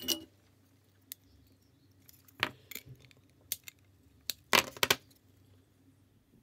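Sharp clicks and clinks as a printed circuit board, a capacitor and a hand tool are handled on the bench: a handful of separate taps, with a quick cluster of louder ones just before five seconds in.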